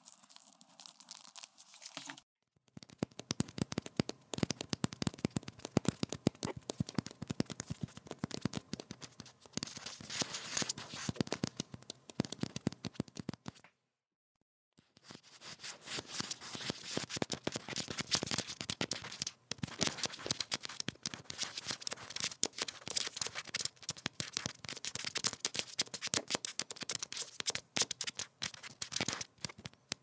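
Rats running: a dense, fast patter of claw scratches and clicks, broken by two short silences, about two seconds in and again midway.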